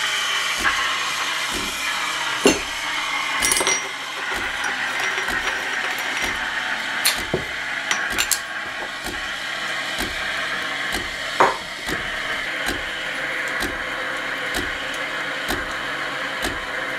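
Delonghi Dedica Maestro Plus (EC950) automatically frothing milk: a steady, loud steam hiss over a low, regular pulsing from the machine's pumps, with a few sharp clicks and knocks. A small air pump feeds air into the milk intermittently between bursts of steam.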